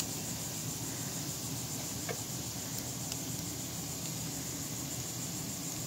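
Steady high insect buzzing over a low steady hum, with a few faint clicks of scissors snipping cast-net mesh about two and three seconds in.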